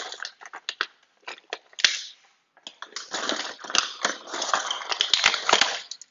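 Metal parts of a new door knob and latch set clicking and rattling as they are handled and fitted into the door. Scattered sharp clicks come first, then after a short pause a dense run of rattling clicks.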